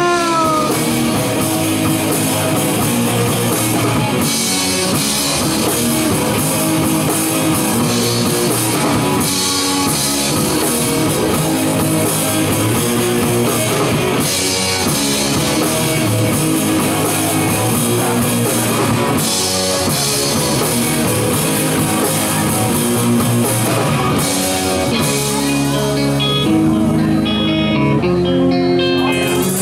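Live rock band playing an instrumental passage without vocals: electric guitars over a drum kit. Near the end the cymbals drop away and long held notes ring.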